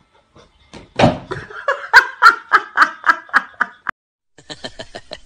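A person laughing in a run of rhythmic bursts, about three a second, starting about a second in; after a short break, quicker and quieter laughter starts again near the end.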